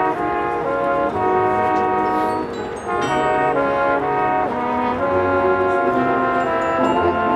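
High school marching band's brass section playing a series of held chords, changing about once a second.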